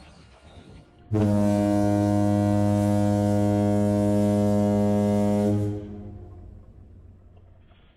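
Ship's horn sounding one long, steady low blast, starting about a second in and lasting about four and a half seconds, then trailing away.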